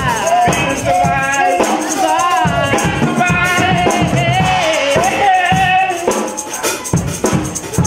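A woman singing into a microphone, holding long wavering notes, over amplified music with a steady beat.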